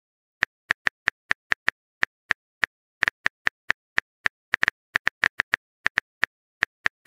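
Simulated phone-keyboard typing clicks from a texting-story app: a run of short, sharp taps, about four a second, as the next chat message is typed out.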